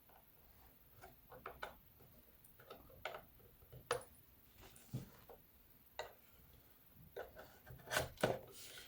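Scattered light clicks and taps of small hand tools and plastic parts as an ST-16 drone controller is taken apart, with a few sharper clicks near the end.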